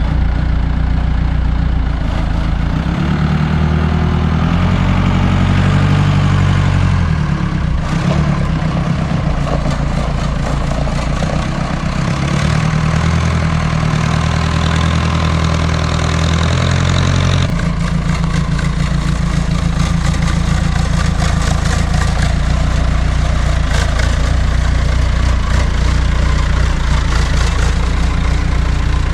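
Telehandler engine running loud and steady, rising in pitch under load a couple of times as it works, then settling to a steady idle about two-thirds of the way in.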